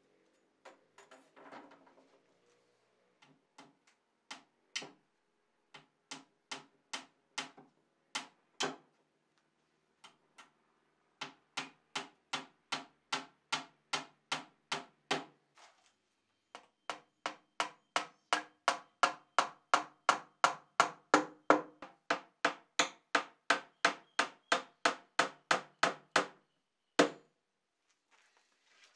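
Hand tool striking the wooden box of a piston bellows under construction, each knock ringing briefly. A few scattered knocks come first, then a steady run of about two blows a second, then a louder, faster run of about three a second, closing with one single hard knock.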